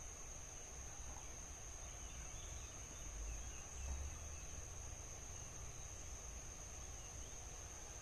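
Outdoor insect drone: one steady high-pitched whine, typical of crickets or cicadas. A low rumble on the microphone swells briefly about three to four seconds in.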